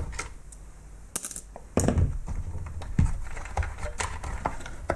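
Scattered clicks and knocks of a screwdriver and plastic parts as screws are taken out of a robot vacuum cleaner's housing. The sharpest click comes a little over a second in.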